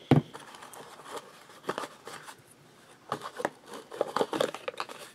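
Ink-soaked cotton swab dabbing and rubbing on paper: irregular soft scratching and tapping, with a sharp tap at the start.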